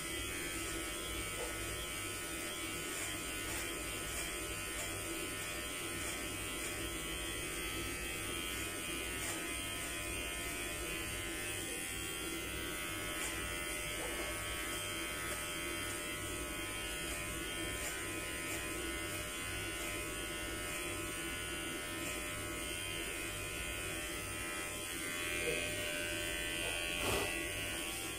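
Electric hair clippers buzzing steadily as they are run through the hair on the side and back of the head, with two brief louder bumps near the end.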